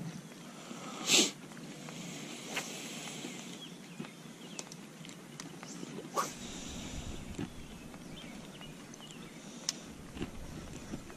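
Quiet outdoor pond ambience with faint bird chirps. A short, sharp noise comes about a second in, the loudest sound, and a shorter falling swish about six seconds in, with a few small clicks between.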